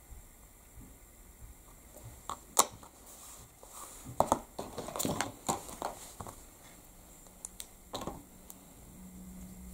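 Hands handling card and a clear acrylic stamp block on a craft desk: a sharp knock about two and a half seconds in, a cluster of light taps and paper rustles a little later, and one more tap near the end.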